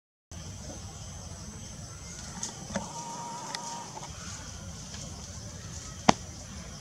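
Outdoor tree-canopy ambience with a steady high-pitched hum and a faint low rumble, a brief flat call about three seconds in, and a few light clicks, the sharpest about six seconds in.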